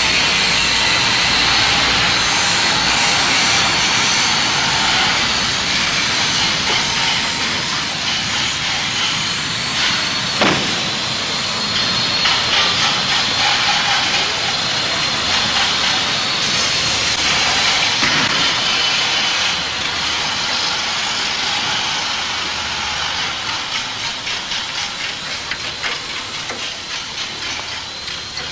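A loud, steady hiss with a faint high whine running through it, and one sharp knock about ten seconds in.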